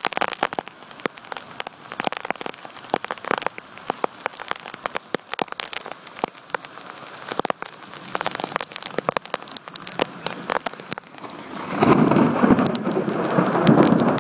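Heavy monsoon rain pouring onto a flooded street, with drops striking close by as sharp, irregular taps. About twelve seconds in, a much louder, denser rush of noise sets in and keeps on.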